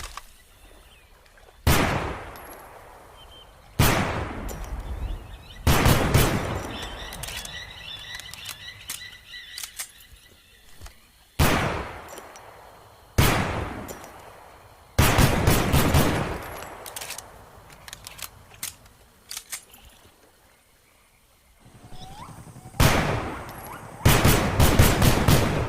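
Colt M1911 pistol firing: single shots a couple of seconds apart, each with a ringing echo tail. Twice it fires a quick string of shots, about halfway through and again near the end.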